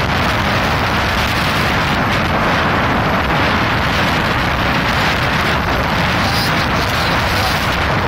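Heavy sandstorm wind blowing steadily and hard, buffeting the microphone with a continuous rushing noise.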